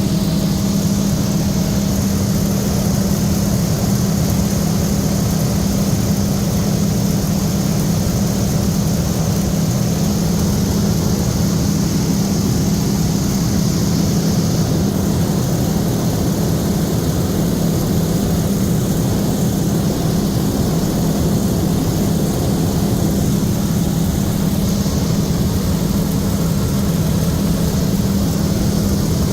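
BT-13 Valiant's nine-cylinder Pratt & Whitney R-985 radial engine and propeller running, a steady, unchanging drone.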